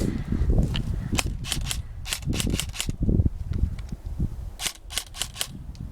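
Airsoft guns firing: a few single shots, then two quick bursts of rapid sharp cracks, one about two seconds in and another near five seconds.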